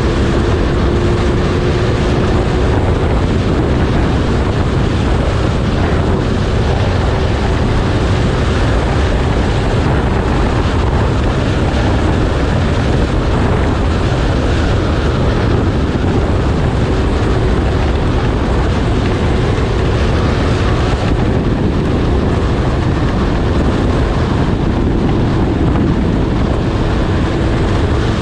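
Snowmobile engine running at a nearly steady pitch under way, mixed with wind noise on the microphone.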